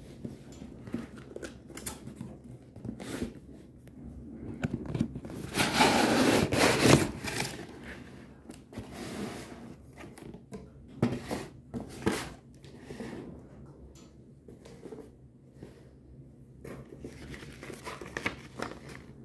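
Cardboard box and packaging being opened by hand: tearing and crinkling with scattered clicks and knocks. The loudest stretch of tearing and rustling comes about six to seven and a half seconds in.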